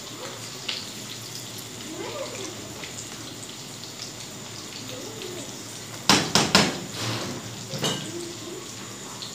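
Cookware clattering: a cluster of sharp metal clanks about six seconds in and one more near eight seconds, over a low steady background hiss.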